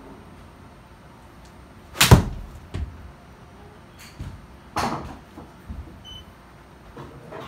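A golf club strikes a ball off an indoor hitting mat about two seconds in, a sharp crack that is the loudest sound. Just under a second later comes a smaller thud as the ball hits the simulator screen. A few softer knocks follow.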